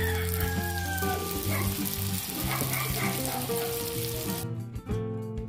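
Lumpiang shanghai spring rolls deep-frying in hot oil in a wok, a steady sizzle with background music underneath. The sizzle cuts off suddenly about four and a half seconds in, leaving only the music.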